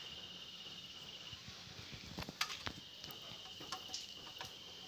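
Faint, steady high-pitched insect trill that breaks off for about a second and a half in the middle, with a scattering of light metallic clicks as a screwdriver works at a screw on a perforated aluminium exhaust end cap.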